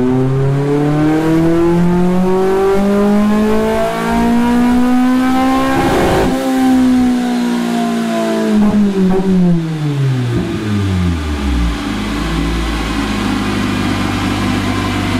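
Toyota Blacktop 20-valve 4A-GE four-cylinder on a chassis dyno, running with no exhaust fitted after the 2-1 front pipe section. It makes a full-throttle pull, climbing steadily in pitch to about 8,000 rpm some six seconds in, then falls back with a few cracks as the revs drop and settles into idle for the last few seconds.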